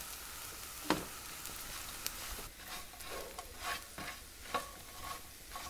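Sourdough bread cubes frying in garlic butter and olive oil in a non-stick pan over a high flame, a steady sizzle as they crisp into croutons. A utensil stirring them gives a few sharp scrapes and clicks, one about a second in and more in the second half.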